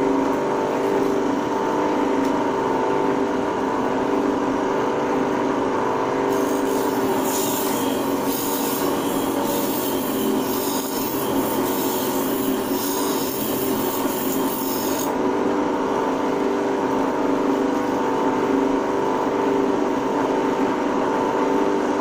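Bench grinder running steadily with a hum, an electric planer blade held against its grinding wheel to sharpen it; from about 6 s to 15 s the blade presses harder on the wheel and a harsh, hissing grind rises over the hum.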